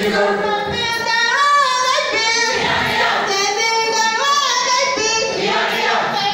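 A group of high voices singing a Dinka traditional dance song together, holding long notes that bend and glide upward.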